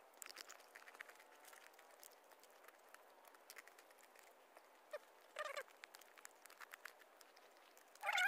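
Spoons clicking and scraping against plastic plates as several people eat, in many small scattered clicks. A short pitched voice-like call comes about five seconds in.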